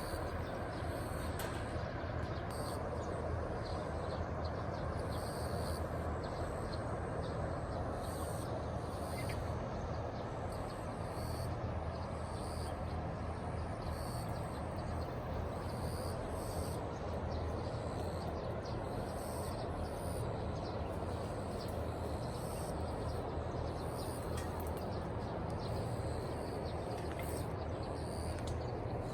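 Outdoor ambience: birds calling with short high chirps, repeated off and on, over a steady low rumble.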